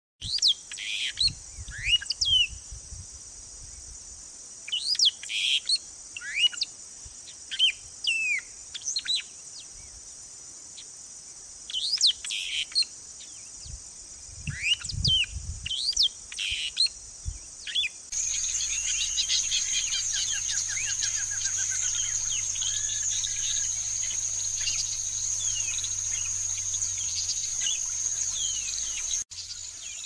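A songbird sings short, clear whistled phrases that slide in pitch, a few seconds apart, over a steady high-pitched insect drone. About 18 seconds in, the recording switches to a louder steady insect drone with many small bird chirps in it.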